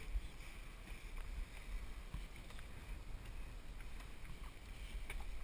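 Steady low wind rumble on the microphone aboard a sailing boat at sea, with a few faint clicks as scuba gear is handled. The sharpest click comes near the end.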